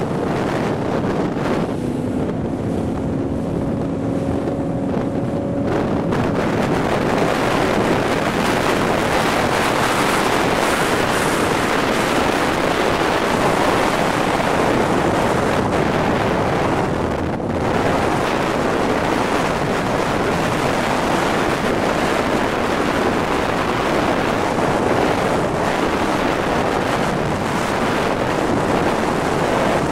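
Powerboat with a 460 cubic-inch Ford big-block V8 running at speed over chop: heavy wind rush on the onboard microphone and rushing water, the engine note mostly buried underneath. A faint steady hum shows through for a few seconds near the start.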